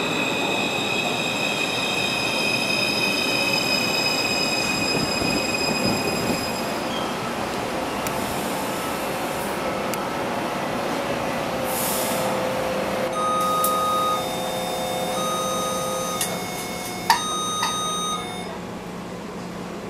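Taipei Metro C341 train braking into a station: its Siemens IGBT-VVVF inverter gives a high whine of several steady tones, falling slightly, over wheel and rolling noise, and the whine dies out about seven seconds in as the train comes to a stop. In the second half, heard inside the car, a run of electronic beeping tones sounds, with a sharp knock near the end.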